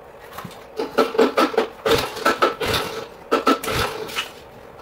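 Irregular metallic clanks and knocks in quick clusters, starting about a second in, some with a brief ring: tools and metal parts being worked on a three-wheeler ATV's wheel mounting.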